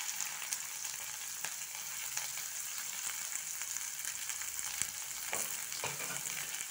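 Freshly added chopped onions sizzling in hot mustard oil in a kadhai: a steady frying hiss with scattered small pops.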